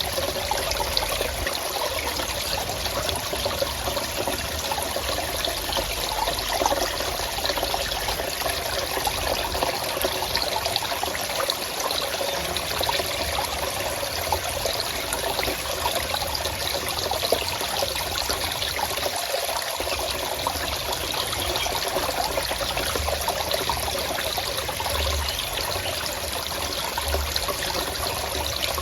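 Stream water flowing steadily, a continuous trickling rush with no breaks.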